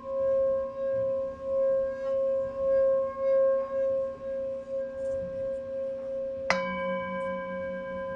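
A singing bowl ringing with a steady tone that swells and fades in a slow wavering pulse. About six and a half seconds in, a sharp strike starts a second, brighter ringing with several overtones.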